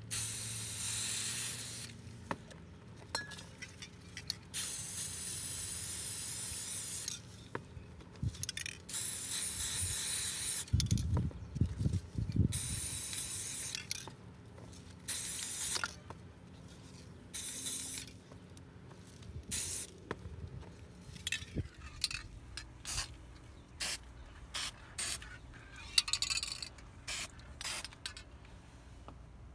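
Aerosol spray-paint cans hissing in repeated bursts as paint is sprayed onto the water surface of a hydro-dip tank to build up the colour film. There are several long sprays of a second or two in the first half, then many short spurts, with a few low thuds around the middle.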